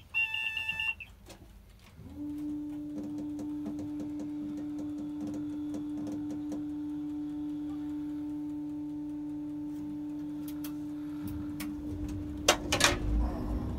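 In a railcar's driving cab, a high warning beeper sounds for the first second. Then a steady electric hum starts about two seconds in and holds, with faint ticking over it. A few sharp clicks and knocks come near the end.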